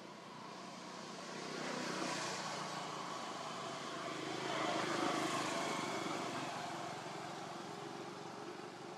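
Engine noise of a passing vehicle, swelling over a few seconds and then fading away.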